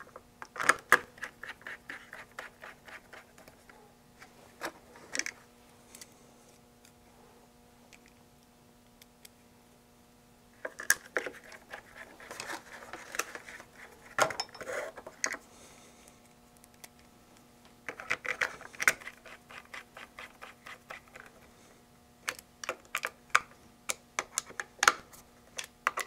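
Small screws being driven into a handheld radio's case with a small screwdriver: four or five bursts of rapid clicking and scraping, with pauses between them.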